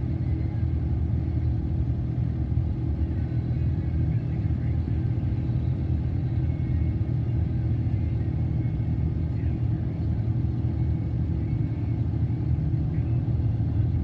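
Steady low rumble of a car driving at road speed, heard from inside the cabin: road and engine noise.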